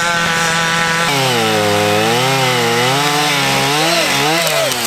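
Gas chainsaw running at high revs while cutting into a standing tree. Its pitch holds steady for about a second, dips and wavers as the chain bites into the wood, then drops near the end as the throttle is let off.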